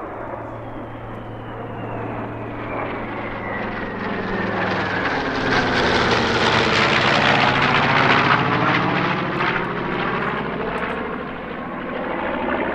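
Bomber engines as the aircraft makes a low flyby. The sound builds to a peak about eight seconds in and then fades, with a whine that falls steadily in pitch as it passes.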